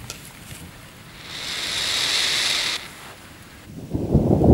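Thunder rumbling, starting about three quarters of the way in and quickly becoming loud and deep. Before it, a short burst of hiss about a second in that lasts about a second and a half and cuts off sharply.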